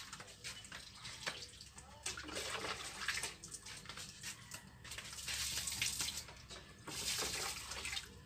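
Water thrown from a pot and poured from a small mug onto garden plants and wet ground, splashing in several bursts.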